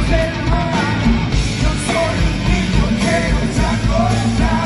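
A live band playing an up-tempo song with a steady kick drum beat, bass and electric guitar, with a woman singing lead vocals over it.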